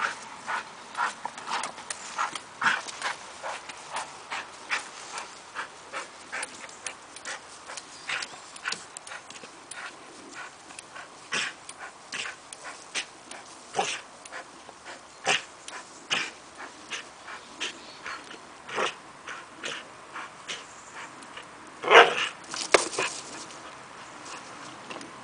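Bulldog-type dog (Brabanter bullebijter) at play, tugging a rope toy. It makes an irregular run of short, sharp sounds, a few a second, with one louder burst near the end.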